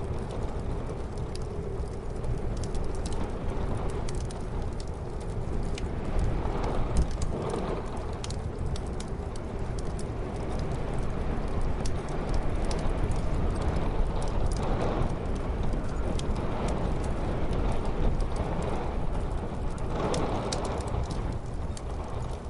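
Wood fire crackling with frequent small pops, over a steady low rumble of muffled snowstorm wind that swells now and then.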